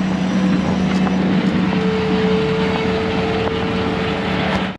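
Bobcat T630 skid steer's diesel engine running hard while spreading dirt, with a steady hum and a thin hydraulic whine that comes in about two seconds in and holds until it cuts off suddenly at the end.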